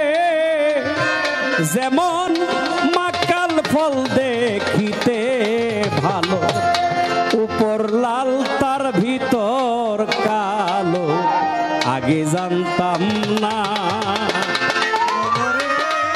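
Instrumental break in Bengali folk pala gan: a violin plays a wavering, ornamented melody over a busy hand-drum accompaniment.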